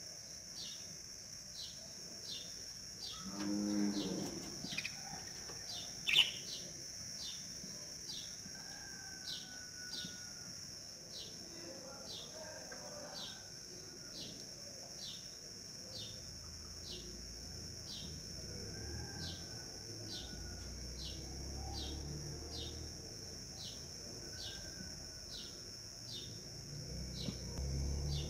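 Outdoor background of steady insect buzzing with a short chirp repeating about every three-quarters of a second. A cow moos once, about three seconds in, and a low rumble comes in during the second half.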